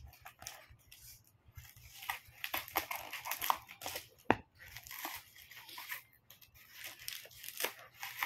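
Cardboard packaging being torn and crumpled open by hand, irregular rustling and crunching, with one sharp snap about four seconds in.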